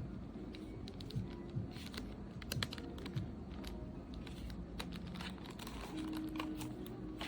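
Irregular light clicks and taps, as of fingers handling or tapping small hard plastic objects, over soft background music.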